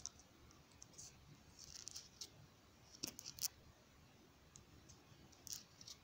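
Faint, scattered sharp clicks over quiet room tone, with a cluster of louder clicks about three seconds in.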